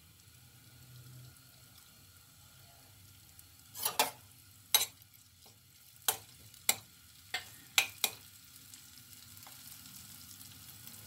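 A spatula scrapes and knocks against a kadhai, about eight sharp strokes from about four seconds in, as grated ginger and bay leaves are stirred in hot oil. A faint sizzle from the frying ginger runs underneath.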